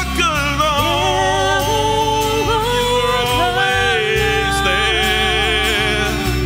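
Live worship band: a man and a woman singing long held notes together over acoustic guitar, electric guitar and drums.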